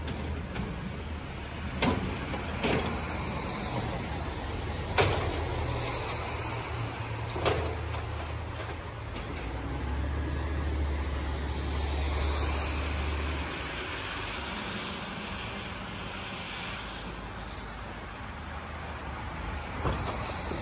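Peterbilt 320 natural-gas garbage truck with an Amrep automated side-loader running at low speed, its engine humming steadily, with several sharp knocks, the loudest about five seconds in and one more near the end.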